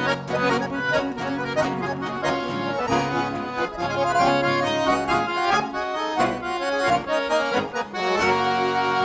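Accordion playing a lively instrumental passage of a regional Brazilian song over a pulsing bass accompaniment, moving to held chords near the end.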